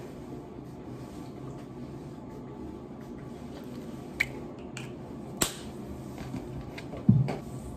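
Two sharp clicks from a plastic bottle with a red cap being handled, about a second apart midway, then a louder dull knock near the end, over a steady low hum.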